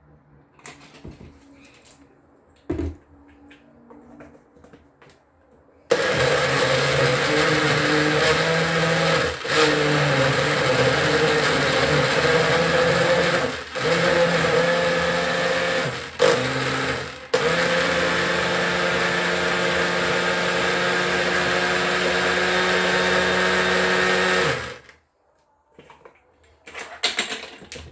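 Small countertop blender running on a jug of fruit and juice. It is switched on about six seconds in, runs steadily with four brief stops along the way, and is switched off a few seconds before the end.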